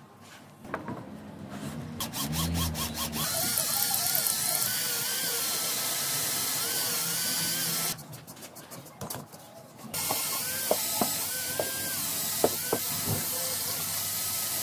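Cordless drill boring into a cast concrete column, running steadily in two stretches that start and stop abruptly, with a quieter gap between them. A few light knocks of concrete pieces being handled come before the first stretch.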